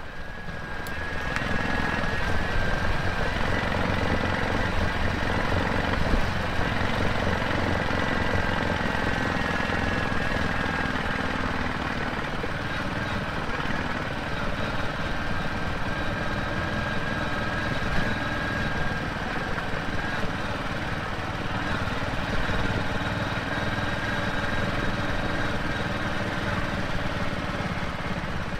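Royal Enfield Classic 350's single-cylinder engine running steadily under way, heard from the rider's seat along with road and wind noise, fading in over the first couple of seconds.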